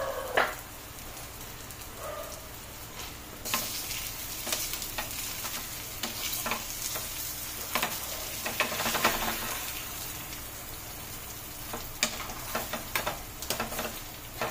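Egg omelette with onions sizzling in a kadai over a low flame, a steady hiss that grows louder about three and a half seconds in, with scattered sharp clicks and knocks.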